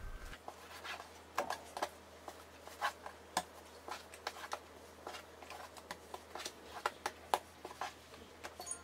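Soft, irregular taps and scrapes of a plastic dough scraper cutting risen yeast dough against a floured wooden board, with the dough being pulled apart and set down by hand.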